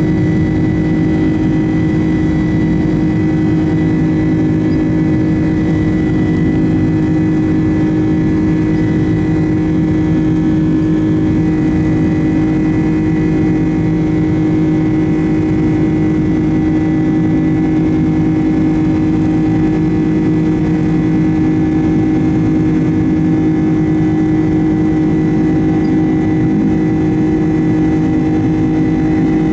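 Boeing 767's General Electric CF6 turbofan engines heard from inside the cabin just ahead of the engine, a steady drone with several held tones that stay the same throughout.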